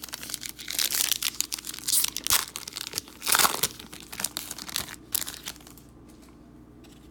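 Plastic wrapper of a basketball trading-card pack crinkling and tearing as it is opened, a dense crackle lasting about five seconds.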